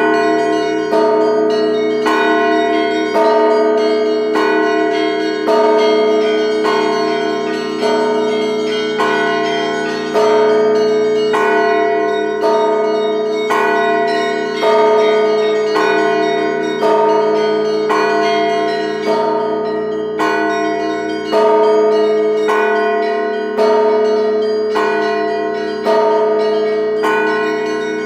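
Russian Orthodox church bells rung by hand, clappers striking stationary bells. Several bells are struck together about once a second, over the unbroken ringing of the larger bells.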